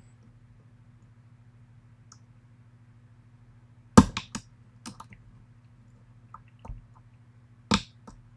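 Metal clicks and taps of a short hook pick and tension wrench working the pins of a pin-tumbler lock: a sharp cluster of clicks about four seconds in, then a few single clicks and one more sharp click near the end.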